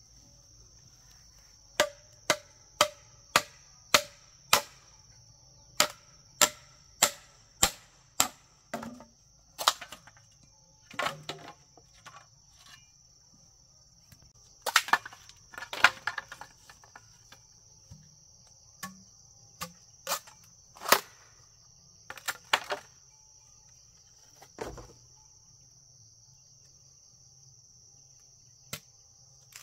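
Steady high insect chirring, with a run of sharp knocks on top. The knocks come about two a second at first, then grow more scattered and stop a few seconds before the end.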